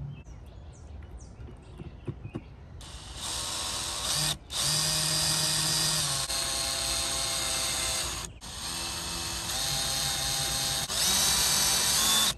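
Cordless drill/driver driving screws to fasten the back half of an RV door lock. After a few faint handling clicks, the motor starts about three seconds in and whines in long runs, stopping briefly twice, with its pitch shifting in steps as the screws draw in.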